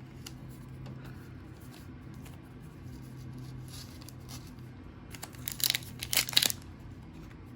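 Wrapper of a Donruss basketball trading-card pack crinkling and tearing open, with a cluster of loud crackling bursts about five seconds in after a stretch of faint rustling.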